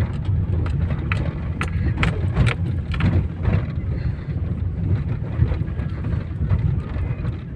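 Opel Zafira driving over a rough road, heard inside the cabin: a steady low rumble of tyres and engine with irregular knocks, thickest in the first few seconds. The knocks are the front-suspension knock the owner is chasing on the passenger side, which is still there with new struts fitted.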